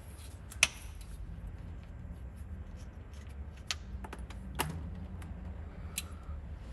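A handful of sharp metallic clicks and ticks, spread out over several seconds, as a socket comes off an oil drain plug on the sump and the plug is unscrewed by hand, over a low steady hum.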